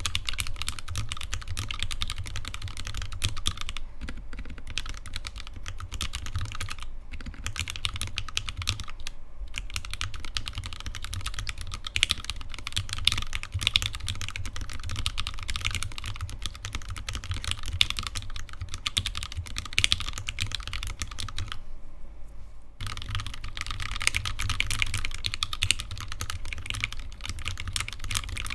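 Continuous typing on a custom Alice-layout mechanical keyboard with lubed Gateron Yellow linear switches, PBT keycaps and an acrylic sandwich case: a dense stream of keystrokes, broken by a few short pauses, the longest about 22 seconds in.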